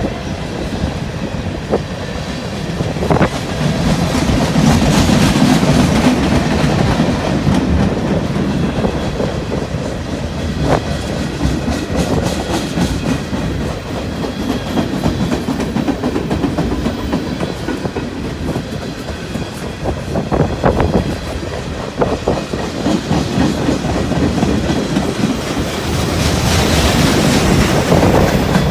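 Freight train cars rolling past, with steady wheel-and-rail rumble and irregular sharp clacks as the wheels cross rail joints.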